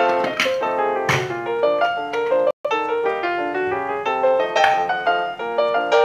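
Background piano music, a steady run of notes that breaks off for an instant about two and a half seconds in.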